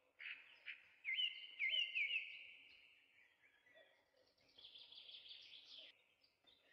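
Faint bird chirps: a run of quick rising notes in the first couple of seconds, then softer twittering later on.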